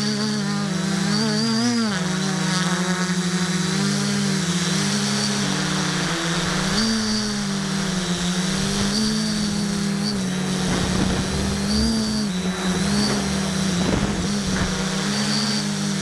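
650-class multirotor drone's motors and propellers droning as heard from its own onboard camera, a steady buzzing hum whose pitch wavers up and down with the throttle. Gusty wind rush on the microphone joins in during the second half.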